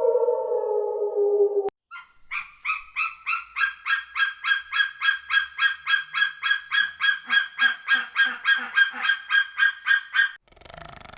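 A long falling musical tone cuts off about one and a half seconds in. Then a domestic waterfowl calls in a fast, even series of short calls, about four a second, for some eight seconds.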